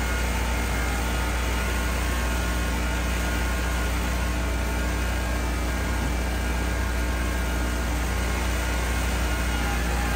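Lawn mower engine running steadily at an even speed, with no change in pitch.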